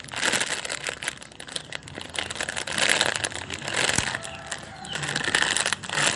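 Hands squeezing and handling a jumbo strawberry ice-cream squishy toy: rustling, crinkling noise coming in several swells, with a single click about four seconds in.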